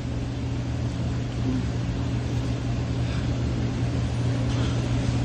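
Steady low machine hum with no change in pitch or level.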